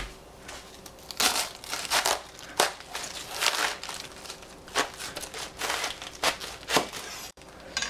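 Irregular crinkling, crunching and tearing from handling a large head of cabbage, in uneven bursts about once a second.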